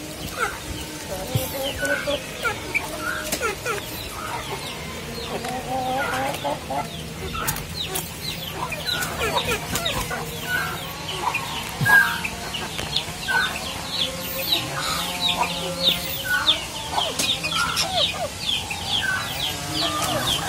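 Domestic chickens clucking, with many short high chirps that grow dense from about halfway through.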